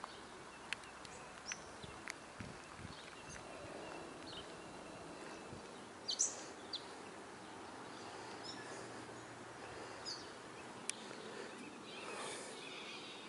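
Quiet outdoor ambience with scattered short, high bird chirps, the loudest about six seconds in, and a few faint clicks.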